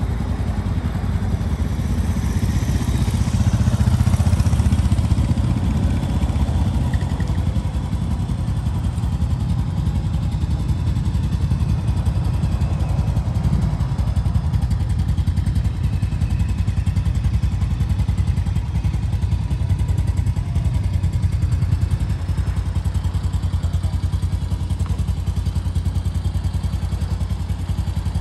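Small single-cylinder four-stroke engine of a Honda TRX90X youth ATV idling with a steady, even putter, swelling slightly louder a few seconds in.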